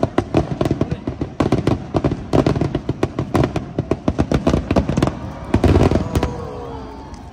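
Aerial fireworks going off in a rapid barrage, many bangs a second, that stops about six seconds in and leaves a fading rumble.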